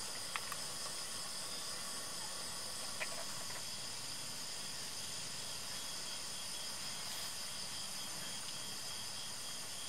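Steady hiss of a portable gas stove burner running under a pot, with steady thin high-pitched tones behind it. A couple of faint clicks come near the start and again about three seconds in.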